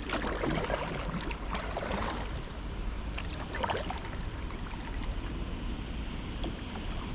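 Water splashing and lapping around a kayak as it is paddled, with a few soft splashes in the first two seconds and again about three and a half seconds in.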